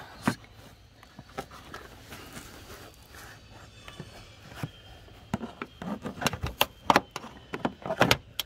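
Cargo-area side trim panel and its push-in rivets being pried loose with a flathead screwdriver: a few scattered clicks at first, then a quick run of sharp clicks and snaps from about five seconds in.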